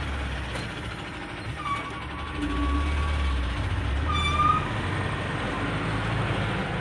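Tow truck's engine heard from inside the cab, running as the truck pulls away from a toll booth. The engine gets louder about two and a half seconds in as it accelerates. Two brief high-pitched tones come through, one about two seconds in and a short rising one a little after four seconds.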